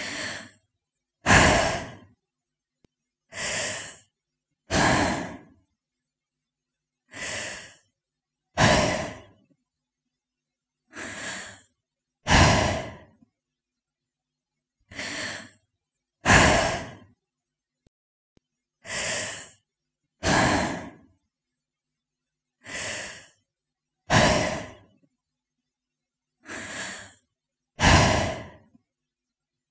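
A woman breathing slowly in pairs: a softer breath, then a louder one about a second later. The eight pairs come about every four seconds, with dead silence between breaths.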